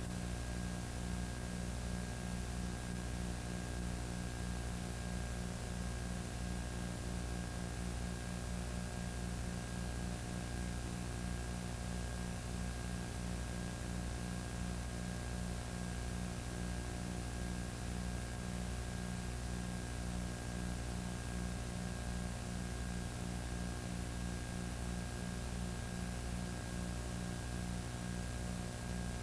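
Steady electrical hum with a fluttering buzz near its low end and an even hiss over it: the recording's own noise, with no sound from the scene.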